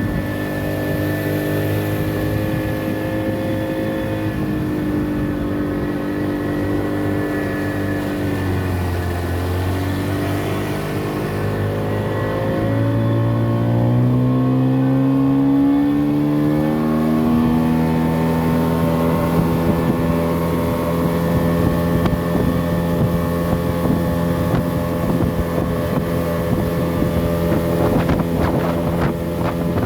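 Motorboat engine running under way. Its pitch sags about eight seconds in, climbs again over the next several seconds, then holds steady.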